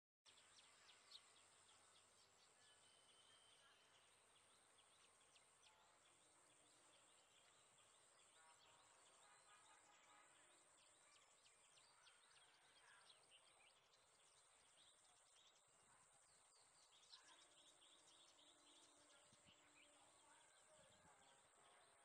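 Very faint outdoor ambience: small birds chirping now and then over a steady high-pitched hiss.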